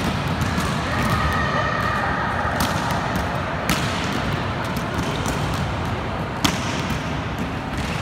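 Volleyballs being hit and landing in a large indoor sports hall: scattered sharp slaps and thuds over a steady din of the hall, the two loudest about three and a half and six and a half seconds in.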